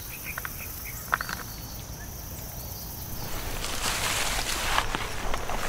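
A steady high insect buzz with a few short chirps, then from about three seconds in, footsteps swishing and rustling through grass and brush, growing louder.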